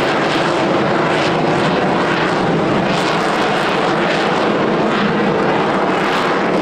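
Rolls-Royce Pegasus vectored-thrust turbofan of an AV-8B Harrier II Plus jet running at high power, a loud, steady jet roar whose upper hiss swells and fades every half second or so.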